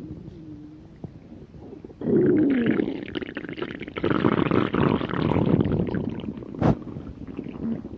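Human stomach growling from hunger: a faint gurgle that slides up and down in pitch, then from about two seconds in a loud, long run of rumbling, with one sharp click near the end.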